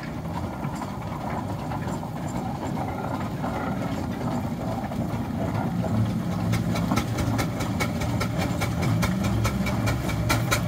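William Foster & Co steam traction engine running along the road with a low rumble. About two-thirds of the way in, its exhaust comes through as rapid, regular chuffing, several beats a second.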